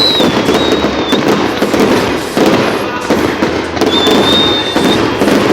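Fireworks display going off continuously: a dense crackling and popping of many shells, with a high whistle held about a second, heard twice.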